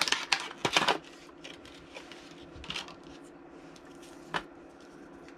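Plastic packaging being pulled open by hand: a quick run of plastic clicks and crinkles in the first second, then a few single clicks, the sharpest one near the end.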